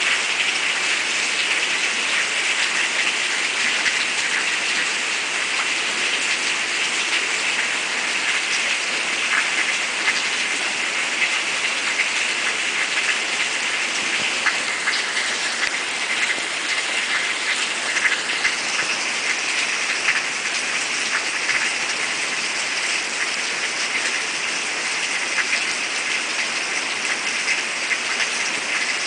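A steady rain downpour: a continuous hiss dotted with many separate drop hits.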